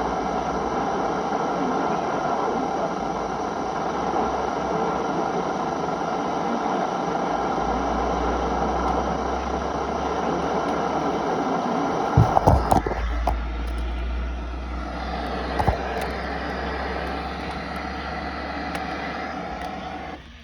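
Broadcast audio of a severe thunderstorm warning, muffled and noisy so the reading can't be made out. A low hum sets in partway through, and a few sharp clicks come about twelve seconds in.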